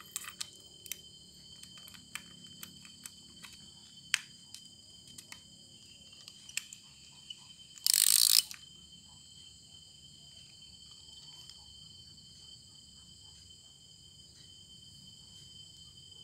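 Small sharp clicks of plastic and metal baitcasting-reel parts being handled and fitted together. About eight seconds in comes one loud rasping burst of about half a second. A steady high trill runs underneath throughout.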